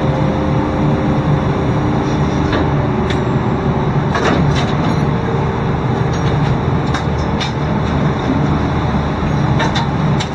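Steady drone of a ship's deck machinery, with a winch paying out wire to lower a load over the side. A few steady tones in the hum come and go, and short clicks and knocks sound around the middle and near the end.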